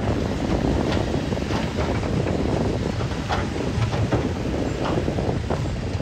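Komatsu D61EX bulldozer's diesel engine running steadily, with irregular sharp clanks and knocks from its steel tracks and the rock it pushes.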